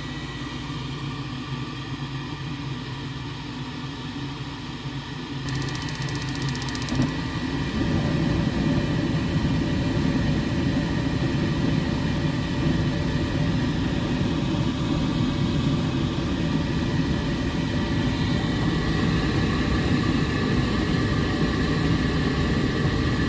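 Gas furnace running: a steady motor whir with a low rumble that grows louder about eight seconds in and then holds.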